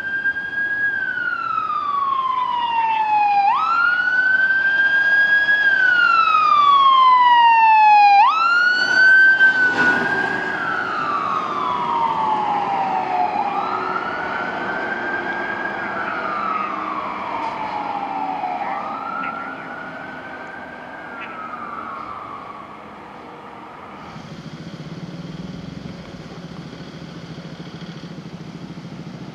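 Emergency vehicle siren on a wail, each cycle rising quickly and then falling slowly, about every five seconds. It grows louder, passes about ten seconds in, and fades away. After about 24 seconds a low vehicle engine rumble takes over.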